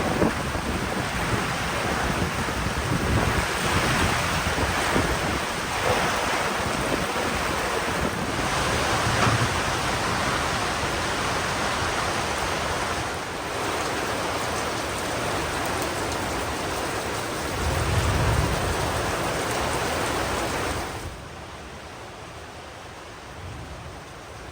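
Heavy rain pouring down in a night storm, a steady dense hiss with low rumbles of thunder, the biggest about 18 seconds in. The downpour sound cuts off abruptly about 21 seconds in, leaving a much quieter hiss.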